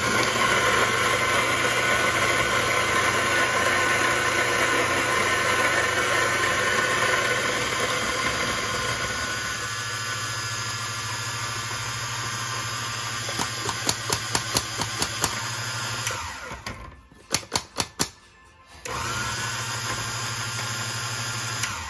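Kalita electric coffee grinder running and grinding beans: a steady motor hum under a loud grinding rasp that thins out after about eight seconds. The motor stops about sixteen seconds in, a few sharp taps follow, and it runs again for the last few seconds.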